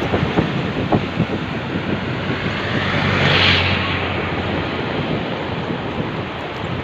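Wind rushing over the microphone outdoors, with a few knocks in the first second or so. A louder whoosh swells and fades about three and a half seconds in.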